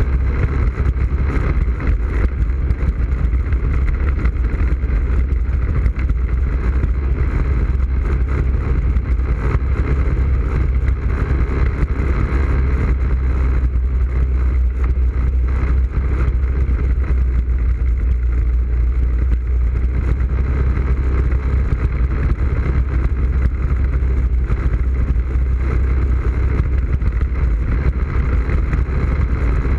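ATV (quad) engine running steadily while riding a dirt trail, heard from a camera mounted on its front rack, with a constant low rumble.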